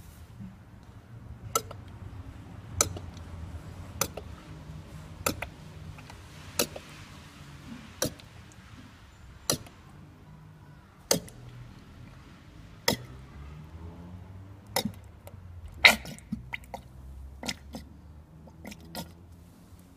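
Plastic bottle of automatic transmission fluid glugging as it is poured into a filler funnel: a sharp gulp of air into the bottle every one to two seconds, about fourteen in all, over a faint low hum.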